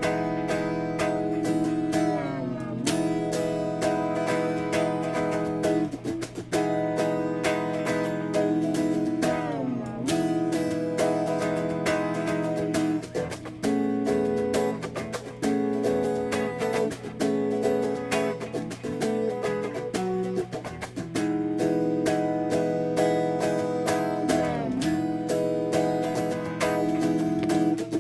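Acoustic guitar music: chords strummed in quick, even strokes, with the chord sliding down in pitch three times.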